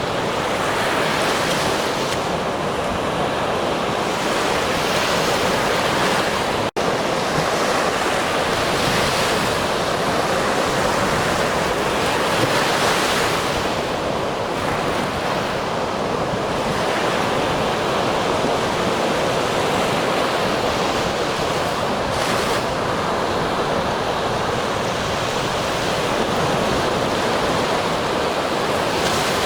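Ocean surf: a steady rush of waves washing in, swelling every few seconds. About seven seconds in, the sound cuts out for an instant.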